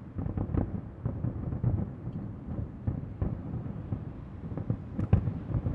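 Aerial fireworks shells bursting in a rapid, irregular run of low booms and crackle, with a sharper, louder bang about five seconds in.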